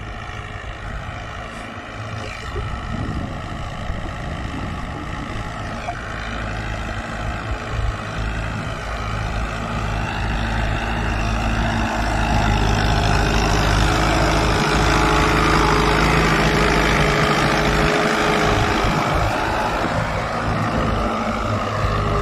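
Fiat 640 tractor's four-cylinder diesel engine running steadily under load as it pulls a Raja hal plough through the soil. It grows louder as the tractor comes close, about halfway through.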